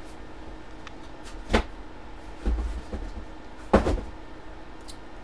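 Two sharp knocks a couple of seconds apart, the second the loudest, with a duller thump between them: objects being handled or set down.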